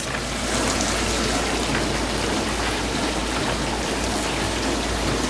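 New GE dishwasher running its wash cycle: water spraying and splashing inside the tub over a steady low hum from the pump motor.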